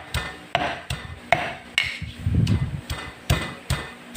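Marble pestle repeatedly pounding sliced oregano leaves, about two or three dull knocks a second, crushing them to extract the juice.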